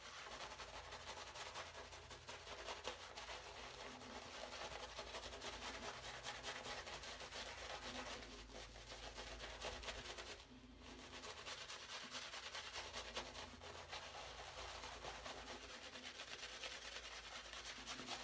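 Black badger shaving brush working lather onto the face: a faint, continuous scrubbing of bristles and lather against skin, with a short break about ten seconds in.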